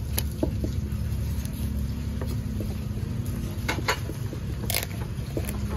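Kitchen clatter: a few sharp clinks and knocks of utensils, the loudest near the end, over a steady low rumble.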